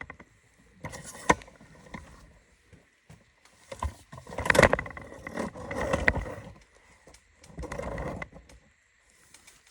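Handling noise as the camera is picked up and moved: irregular rustling and scraping with a few sharp knocks, the loudest a bit before the middle.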